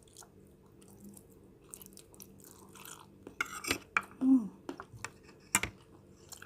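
Someone eating fried noodles: chewing and mouth sounds, picking up about halfway through, with a short hum near the middle and a sharp click of cutlery about two seconds later.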